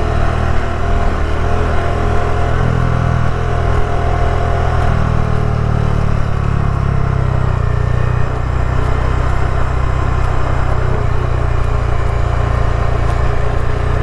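Bajaj Dominar 400 motorcycle's single-cylinder engine running steadily under way, its note shifting about five and eight seconds in.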